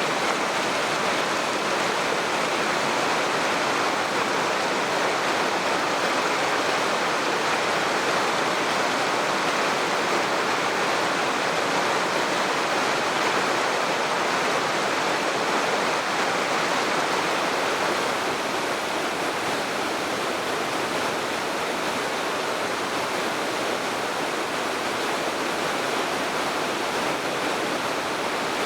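Steady rush of falling water from a waterfall on the Oirase mountain stream, a little quieter from about two-thirds of the way through.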